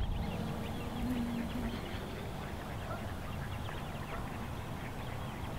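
Waterfowl calling out on the water, many short calls overlapping into a steady chatter over a background hiss.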